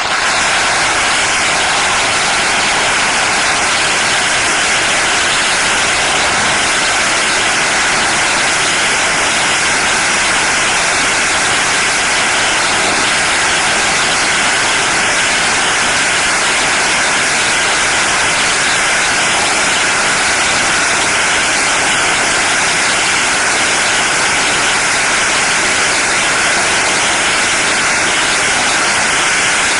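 A huge bound mass of firecrackers going off at once, the bangs so dense that they merge into one loud, steady crackling noise. It starts abruptly and holds level, without a break.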